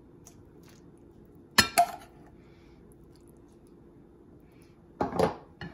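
A serving spoon clinking against a saucepan and bowls as gravy is scooped and poured: two quick clinks about one and a half seconds in, and a longer, louder clink near the end.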